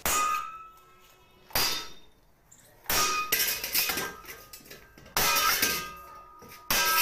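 An axe hitting a 10-gauge 410 stainless steel helmet. About five blows come one and a half to two seconds apart, each a sharp metallic clang followed by the steel ringing and fading.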